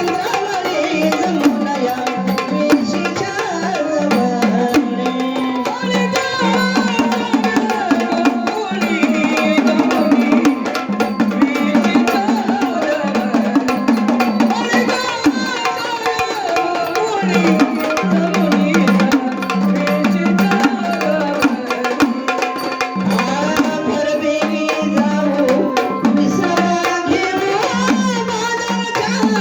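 Traditional Marathi gondhal music: a gaulan with a male lead voice, sung over fast, steady sambal drumming and an electronic organ playing a repeating low note and melody.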